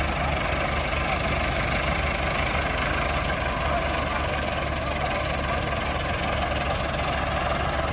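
Heavy farm machinery's diesel engine running steadily, with no change in speed.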